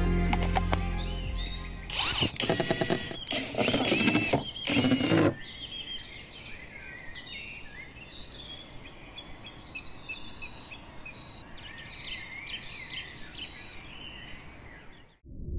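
Cordless drill-driver run in several short bursts, about two to five seconds in, as screws are driven. After that, birds chirp and sing.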